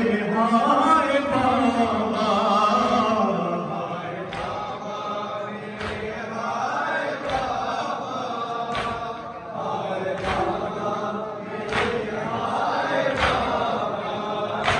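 Men chanting a Shia noha mourning lament, a lead voice with the crowd joining in unison. Sharp slaps land in time about every one and a half seconds, typical of matam chest-beating that keeps the rhythm.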